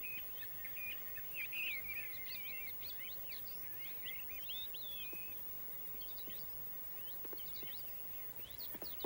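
Small birds chirping and twittering over a faint outdoor hiss, busiest in the first half and thinning out later. A few faint taps near the end.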